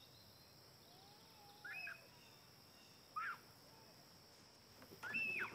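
A girl's distant cries, three short calls that get louder each time, the last one held for about half a second, over a steady high buzz of insects.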